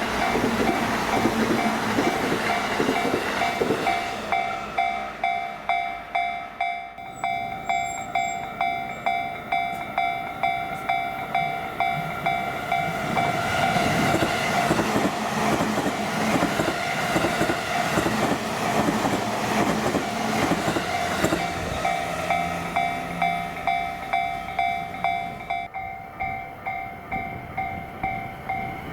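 Japanese railway level crossing's warning bell ringing over and over, about one and a half strikes a second. Underneath it, trains pass over the crossing with wheel rumble and rail clatter.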